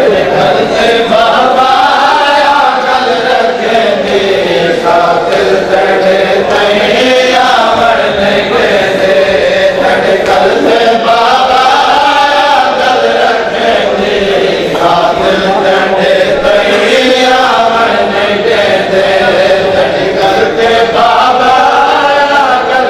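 Men's voices chanting a nauha, a Shia mourning chant. The melody rises and falls in one repeated phrase about every four to five seconds.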